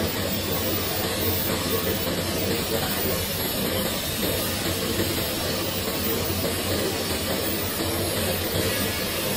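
Lathe-type spiral flight forming machine running, rolling steel strip into a continuous small auger flight through its forming head: a steady, even hum and hiss.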